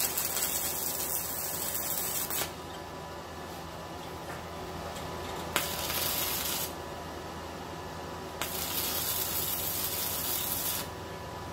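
Stick welding arc from a 6011 3/32-inch electrode at 60 amps on a Yeswelder MIG-205DS, struck three times for tack welds. Each strike opens with a sharp crack and runs as a steady crackling hiss, for about two seconds, then one, then two.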